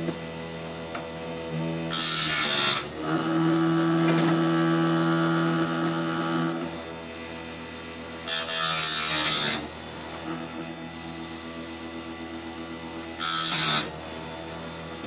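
Chicago Electric chainsaw sharpener, converted for a bandsaw blade, with its motor running and a steady hum. Three short bursts of grinding hiss come as the abrasive wheel is brought down onto a tooth: about 2 seconds in, about 8 seconds in, and near the end.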